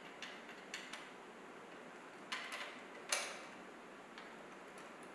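Allen wrench clicking against a metal leg connector while the screws and nuts of a table's leg frame are tightened by hand: a few scattered clicks, the loudest about three seconds in.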